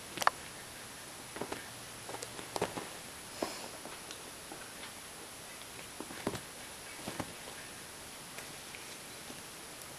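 A cat clawing and batting at suede boots on carpet: scattered short scratches and taps, the sharpest about a quarter second in, over a steady hiss.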